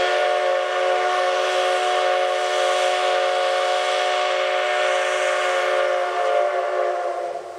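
C57 180 steam locomotive's whistle blown long and steady, a chord of several tones sounded as the departure signal, cutting off near the end.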